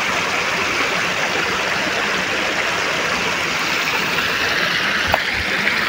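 Shallow stream water rushing steadily over rocks and a small concrete weir cascade.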